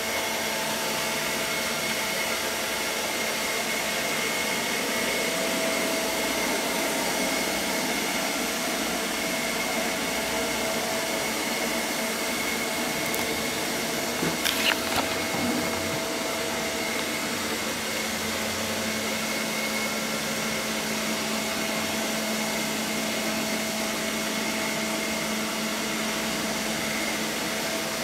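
ILIFE V5S robot vacuum running with a steady whir and a thin high whine, with a few brief knocks about halfway through.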